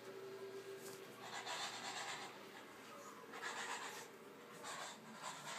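Small dog wrestling a plush toy on a carpet: soft scuffling and rustling of fur, fabric and paws, coming in several short spells.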